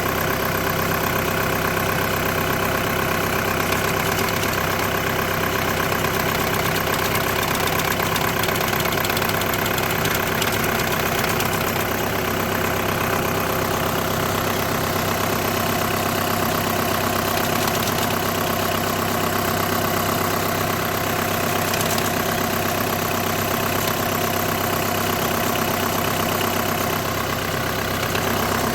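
Volkswagen engine with a DSG gearbox idling steadily, holding several constant tones. This is the strange noise being diagnosed as clutch plate or clutch bearing vibration.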